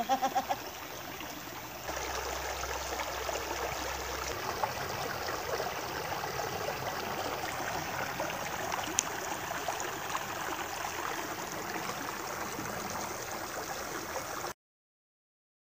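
Shallow creek water flowing and trickling steadily over rock, an even rushing noise that cuts off suddenly near the end.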